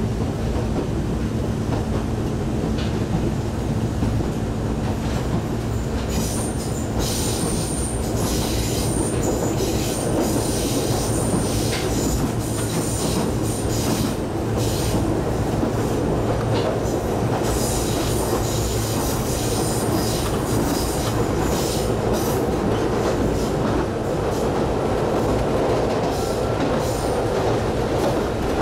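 Ichibata Electric Railway 5000-series electric train (ex-Keio 5000), heard from inside the car at speed. The wheels and rails give a steady running rumble with a constant hum, and a high wheel squeal comes and goes from about six seconds in until past twenty seconds.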